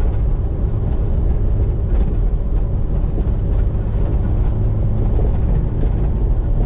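Car driving along a road, heard from inside the cabin: a steady rumble of engine and tyre noise.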